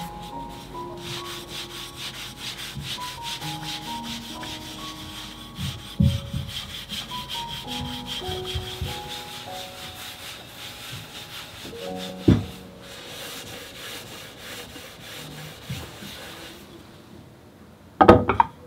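Sandpaper rubbed quickly back and forth over a wooden cutting board, with a couple of knocks partway through. The rubbing stops, and near the end the board clatters as it is set down.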